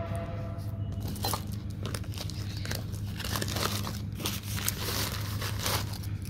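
Rustling and crinkling as a fabric kit bag's pockets are handled and plastic-wrapped items are moved about inside, in many irregular short strokes over a steady low hum.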